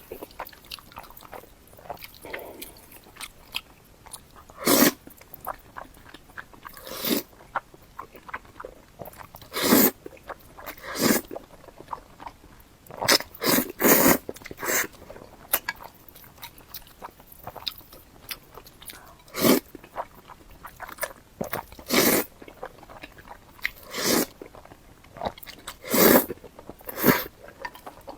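Close-miked eating: mouthfuls of sesame-paste instant noodles being bitten and chewed, with short wet mouth noises every second or two.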